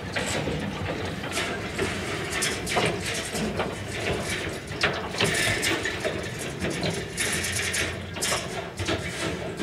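Cattle shifting inside a road train's metal double-deck livestock crates: irregular clanks, knocks and hoof clatter against the metal.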